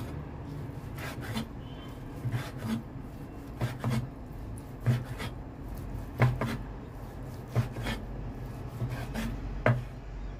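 Chinese cleaver chopping chicken thigh into chunks on a wooden cutting board: a series of irregular knocks of the blade on the wood, some in quick pairs.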